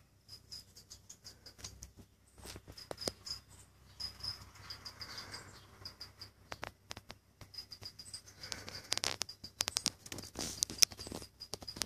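An insect, likely a cricket, chirps in a steady run of short, high notes at one pitch. Scattered clicks and rustling come over it, thickest and loudest from about eight seconds on.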